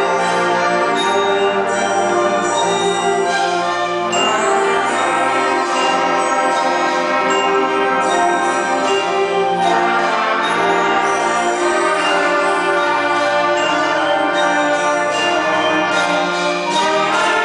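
Mixed student ensemble of violins, flutes, saxophone, trumpets and trombones playing together, holding long chords that move to new ones every few seconds.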